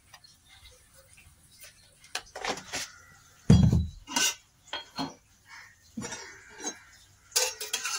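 Steel spoon and kitchen utensils clinking and tapping against an aluminium pot as salt is spooned into the water, with one heavier knock about halfway through.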